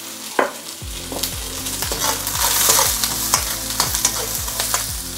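Vegetables sizzling in hot oil in a carbon steel wok, with a metal ladle scraping and clinking against the wok as it stirs them. The sizzle grows a little louder after about a second, once the freshly added red peppers heat up.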